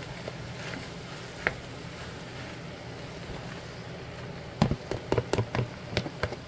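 Rice being knocked out of a plastic container into a frying pan: a quick run of sharp knocks and taps of the container against the pan, starting about two-thirds of the way in, over a steady low background hum. A single click comes earlier.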